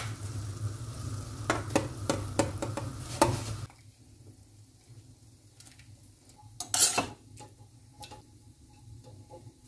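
Pot of water at a rolling boil, bubbling steadily with a low burner hum, which stops abruptly after about four seconds. Then quieter scattered clinks and knocks of a metal spoon and skimmer against the pot and a colander, with one louder clatter about seven seconds in.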